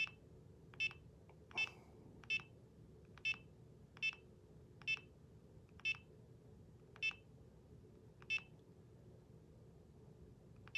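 Key-press beeps from a Garmin GPSMAP 66st handheld GPS as its map is zoomed in one step at a time: about ten short, high beeps. They come a little under a second apart at first and spread to over a second apart near the end.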